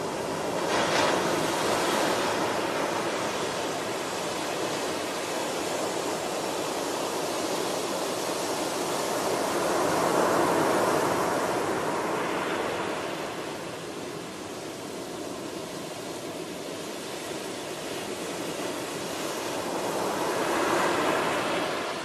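Ocean surf: waves breaking and washing up a beach, a steady rushing hiss that swells with each break, loudest about a second in, around the middle, and near the end.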